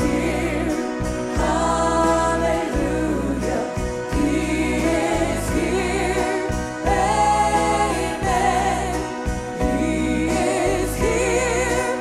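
A woman singing a gospel worship song lead with vibrato, backed by singers and a live band.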